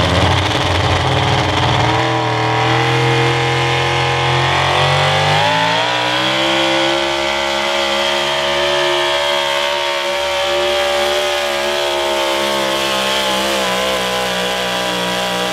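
A Super Stock 4x4 pulling truck's engine runs at full throttle pulling a sled. The revs climb over the first few seconds as the truck launches, then hold high and steady through the pull, wavering slightly near the end.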